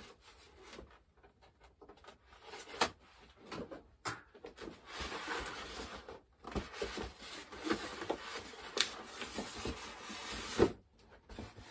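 A cardboard model-aircraft box being handled and its printed outer box slid up off a white foam inner box: rubbing and scraping, with a few sharp knocks.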